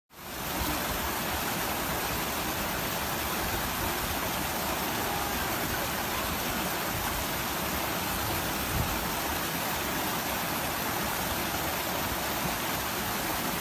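Steady rushing wind on the microphone: an even hiss with an unsteady low rumble underneath.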